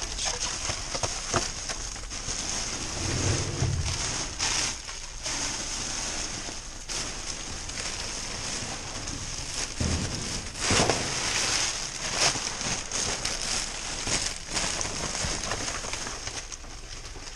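Plastic trash bags and bubble wrap rustling and crinkling as gloved hands dig through them, with a few louder bumps of items being shifted.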